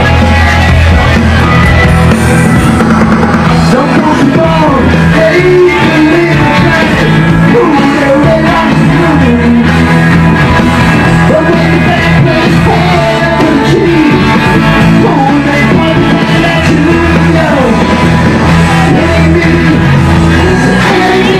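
Loud live rock band playing: electric guitar, bass guitar and drums, with a male singer.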